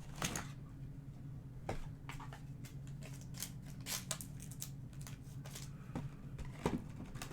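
Trading cards being handled and sorted: an irregular run of short clicks and scrapes as cards are slid and set down, over a faint steady low hum.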